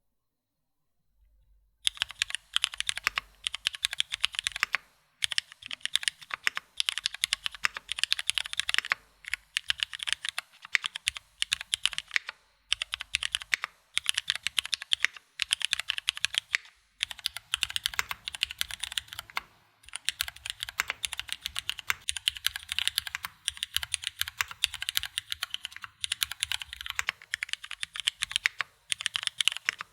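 Typing on a Koobaczech Pandora 60 gasket-mount mechanical keyboard with lubed Cherry Hyperglide Black linear switches, GMK keycaps and an aluminium plate. A fast, steady stream of keystrokes starts about two seconds in, broken by short pauses.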